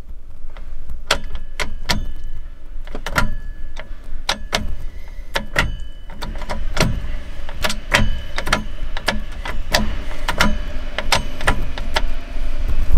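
A newly fitted short shifter on a Toyota AE86's W58 five-speed gearbox being worked through the gears, the lever clicking and clunking into each gate, about two knocks a second.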